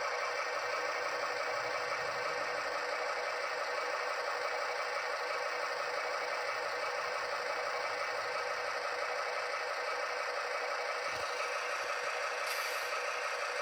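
Bachmann Class 70 OO gauge model locomotive's sound decoder playing its diesel engine sound through the model's small speaker: a steady, thin engine drone with no bass.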